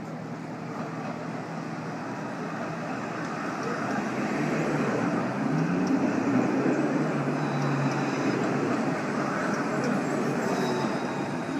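Modern electric tram approaching and passing close by, a steady rolling rumble of wheels on rails that grows louder and stays loud as the cars go past.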